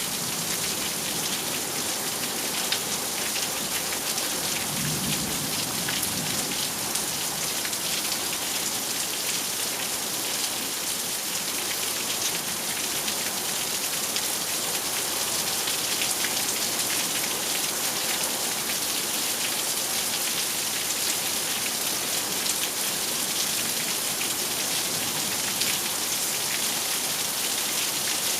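Heavy, steady rain of a thunderstorm hissing down, with many individual drops ticking on surfaces. A faint low rumble of distant thunder comes about five seconds in.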